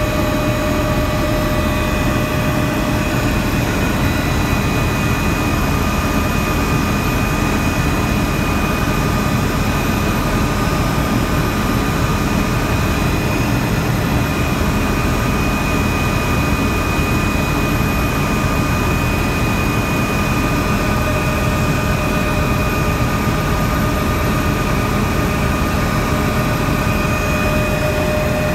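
Helicopter in steady flight heard from on board: a constant loud rumble of engine and rotor, with several high held tones running over it unchanged.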